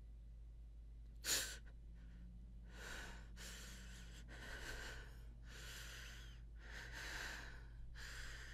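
A woman breathing heavily: a sharp gasp about a second in, then a run of about six ragged breaths, one after another. A steady low hum runs underneath.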